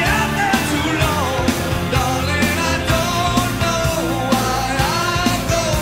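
Rock song with a singing voice over a full band and a steady drum beat.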